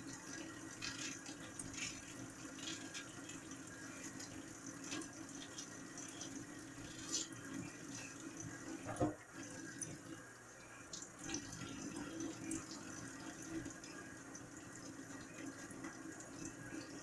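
Kitchen faucet running a thin, steady stream into a stainless steel sink, with scattered light clicks and a single knock about nine seconds in.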